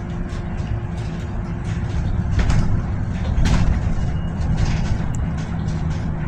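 Cabin noise of a Solaris Urbino 18 Electric articulated bus on the move: a steady low road rumble with a constant hum, and the body rattling and knocking over the road surface, two knocks in the middle louder than the rest.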